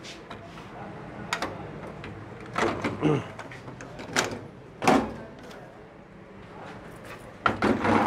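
Plastic parts of a microwave oven's door-release latch clicking and knocking as the push block behind the door button is fitted into place, in several separate sharp knocks a second or so apart.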